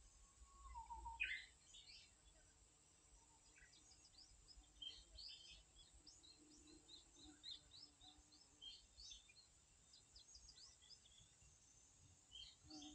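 Faint outdoor ambience: small birds chirping, with many short high calls scattered throughout, over a low steady background rumble.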